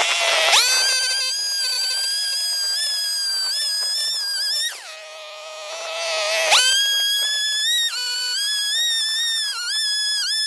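Small two-stroke engine of a gas-powered earth auger revving to full throttle with a high whine. About five seconds in it drops back to idle, then revs up sharply again. In the last few seconds its pitch wavers as it comes under load with the auger boring into sandy soil.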